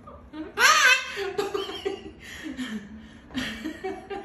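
Laughter in several short bursts, the loudest about half a second in.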